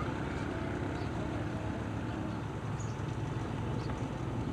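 Steady low rumble and hiss of outdoor sound with faint, distant voices.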